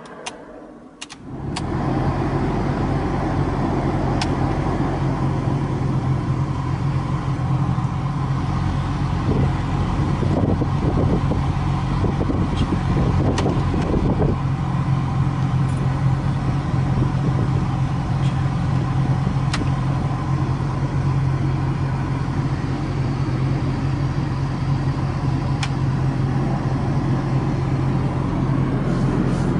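Inside a Honda Prelude, a steady low hum of the car's engine and climate blower starts about a second and a half in and runs on. Light clicks come now and then as the climate control buttons are pressed in turn.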